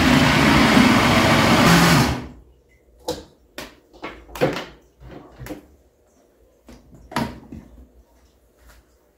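Countertop blender running on a lemon mousse mixture, stopping about two seconds in. A handful of sharp plastic knocks and clicks follow as the jar is handled and lifted off its base.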